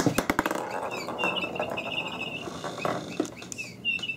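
A quick run of sharp taps and clicks at the start, then a high, rapidly warbling chirp, heard twice, the second near the end.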